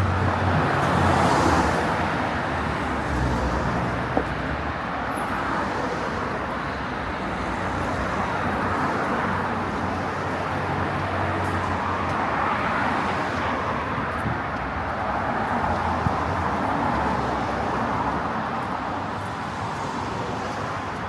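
Street ambience of road traffic: a steady rush of passing cars, with a vehicle engine running close by early on and one sharp click about four seconds in.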